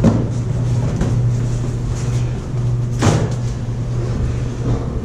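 Steady low machinery hum inside a wind turbine nacelle, with cardboard-box handling knocks and rustles at the start and again, louder, about three seconds in.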